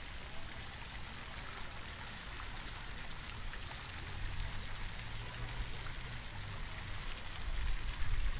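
Ornamental park fountain's jets splashing into its stone basin: a steady hiss of falling water. A low rumble swells in the middle and is loudest near the end.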